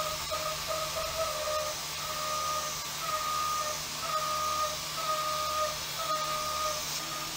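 Haas CNC mill roughing a bevel into a hardened-steel knife blade. The cutter's whining tone comes and goes about once a second as the tool makes its passes, over a steady hiss from the air blast and the low hum of the spindle.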